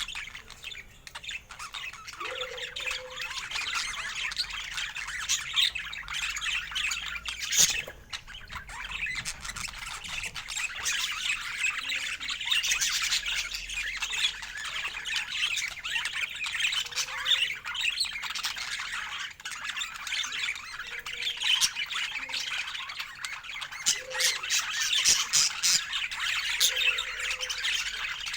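Pet parakeets chattering and squawking in a dense, continuous stream of chirps.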